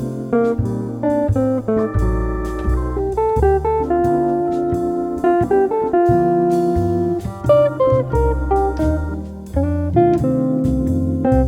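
Background music: a cafe-jazz track led by a plucked guitar with a bass line and steady beat.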